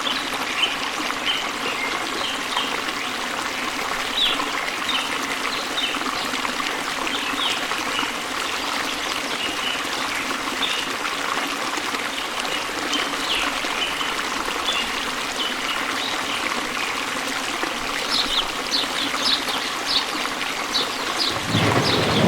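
A stream trickling steadily, with short bird chirps throughout that grow more frequent near the end. A deeper rushing sound comes in just before the end.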